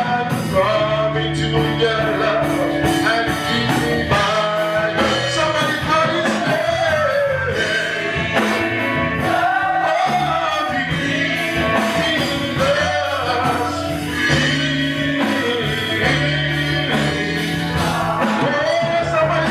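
Live gospel worship music: a band with a steady drum beat under held low chords, with voices singing.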